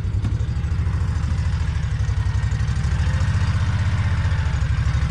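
Farm vehicle's engine running with a low, fast pulsing note while it is backed up, growing a little louder partway through.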